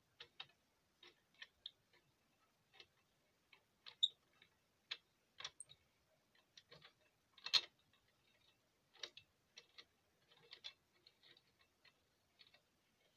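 Sparse, irregular clicks and taps of small metal parts being handled on a homemade Gingery lathe's carriage, the sharpest about four and seven and a half seconds in.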